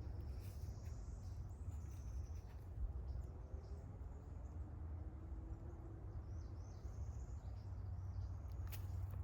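Quiet outdoor ambience: faint bird chirps over a low, steady rumble.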